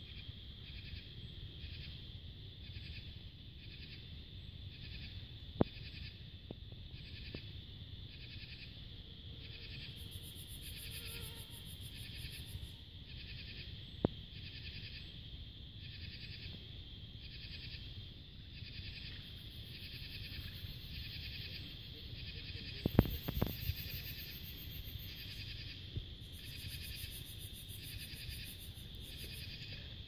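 Twilight chorus of cicadas and other insects: a steady high chirping that pulses about three times a second, joined now and then by a few seconds of very high, thin buzzing trills. A few short sharp clicks stand out.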